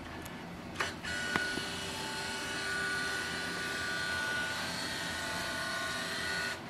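Canon CanoScan LiDE 400 flatbed scanner scanning a page: after a click about a second in, its carriage motor runs with a steady whirr and a high whine as the scan head travels along the bed, stopping near the end.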